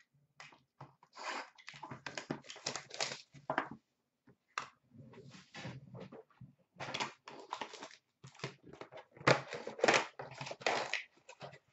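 Plastic wrapping crinkling and tearing and cardboard rustling as a hockey-card hobby box is opened by hand, in irregular bursts, loudest about nine and a half seconds in.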